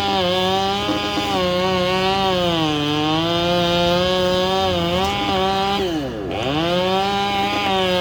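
Chainsaw running at high revs, its pitch sagging and recovering. About six seconds in it drops off almost to idle, then revs straight back up.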